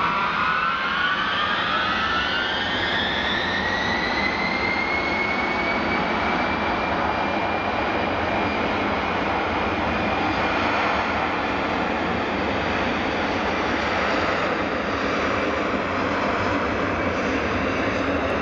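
Tupolev Tu-154M's three Soloviev D-30KU-154 turbofans spooling up to takeoff power: a whine rising in pitch over the first several seconds, then levelling off into steady jet noise as the takeoff roll begins.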